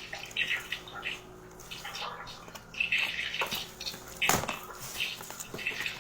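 Gift packaging being handled and opened: irregular rustling and crinkling, with one sharp knock about four seconds in.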